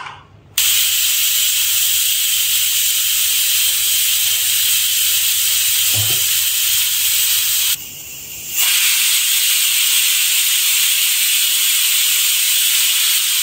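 Aluminium stovetop pressure cooker whistling: steam hisses loudly out through the whistle weight, stops for about a second, then starts again, two whistles in all. The two whistles signal that the pulao inside is cooked.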